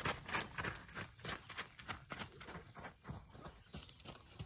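A horse's hooves beating on sandy dirt as it circles on a lunge line, a quick run of repeated thuds.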